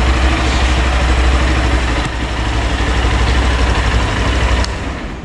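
Honda XRE 190's fuel-injected 184 cc single-cylinder engine idling steadily just after starting, an engine the owner calls very healthy. The low rumble drops away near the end.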